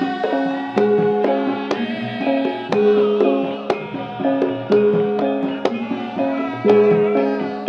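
Live traditional music: a repeating melody of struck, ringing pitched notes over sharp hand-drum strokes.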